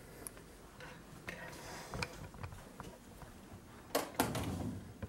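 Small knocks and rustling of someone rummaging through a cluttered desk and furniture, with a sharp double knock and a louder clatter about four seconds in.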